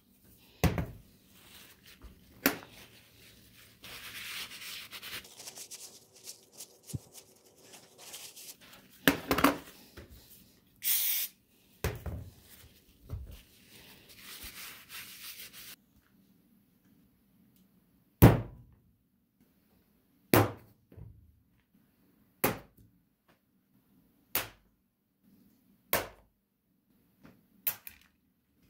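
Metal relay-valve parts being wiped with a rag, rubbing and rustling, with a few knocks and a brief hiss from an aerosol spray can. Then about six sharp knocks roughly two seconds apart as the cleaned metal parts are set down one by one on a steel-topped bench.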